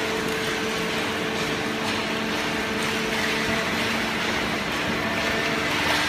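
Automatic horizontal carton baler running: a steady mechanical hum of its hydraulic power unit and feed conveyor, with a few steady tones that drop out about halfway through and return near the end.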